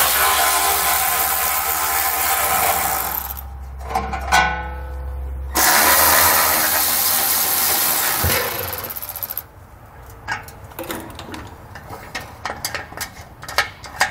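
Cordless electric ratchet running in two long spells, spinning out the heat-shield bolts with a 13 mm socket, with a short whine between them. After that come light clicks and rattles as the loosened metal heat shield is handled.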